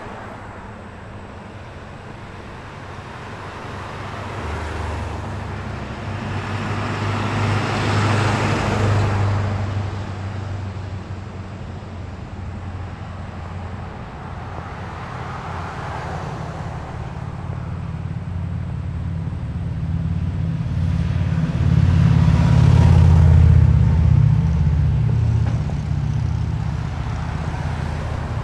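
Road traffic: cars passing over a steady low engine hum, with two louder pass-bys about eight seconds in and again around twenty-three seconds in.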